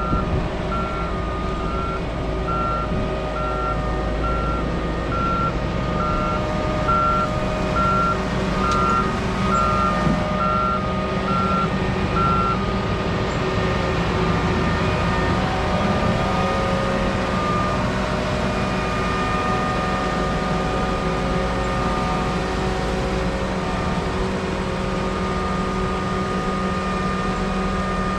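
Backup alarm on a reversing farm machine, beeping about once a second over a diesel engine running steadily; the beeping stops about 12 seconds in while the engine keeps running.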